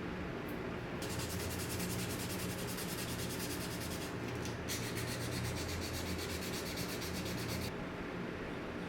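Abrasive sanding on the knife, a hiss with a fast, even scratching rhythm that starts about a second in, pauses briefly midway, then stops shortly before the end, over a steady low hum.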